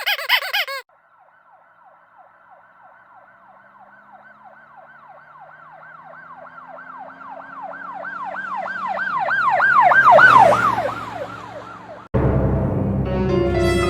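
Siren in a fast yelp pattern, about four sweeps a second, growing louder as it approaches, peaking about ten seconds in, then dropping in pitch and fading as it passes by. It is cut off abruptly near the end by loud, ominous music.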